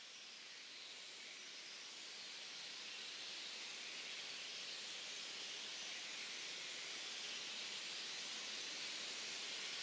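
Electroacoustic music: a band of electronic hiss slowly swelling louder, its brightest part in the upper treble.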